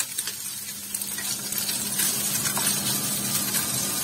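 A kitchen extractor hood is switched on with a click. Its fan hums steadily and spins up over the first two seconds into a rush of air, over pieces of trout sizzling in a frying pan.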